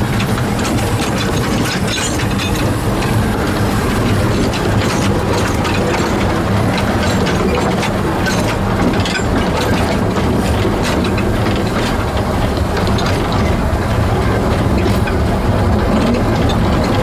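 The 1924 Wee Georgie Wood steam locomotive and its carriage running along 610 mm narrow-gauge track, heard from on board close behind the engine: a steady loud rumble with scattered clicks and clatter of wheels on the rails.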